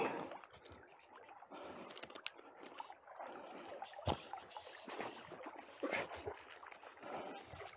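River current swirling and lapping close by, broken by a few sharp splashes from a hooked sea trout thrashing at the surface.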